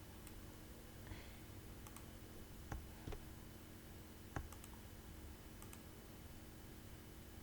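A handful of faint clicks from a computer mouse or keys, the three clearest between about three and four and a half seconds in, over a steady low background hum.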